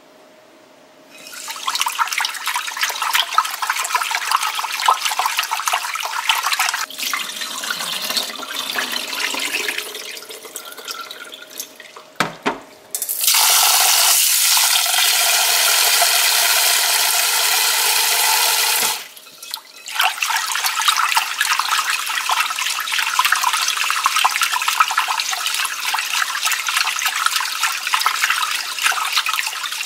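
Rice grains being swished and rubbed by hand in water in a glass bowl, a dense grainy crackle. About thirteen seconds in, a kitchen tap pours a steady stream onto the rice for about six seconds, then the hand-washing of the rice starts again.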